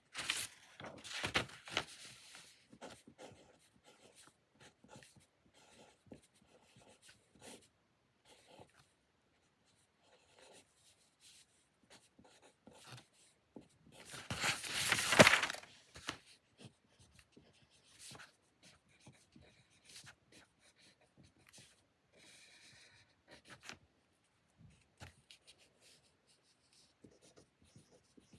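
Writing on paper while doing homework: a run of short, faint scratching strokes and small taps, with two louder, longer noisy bursts, one near the start and one about halfway through, the second the loudest.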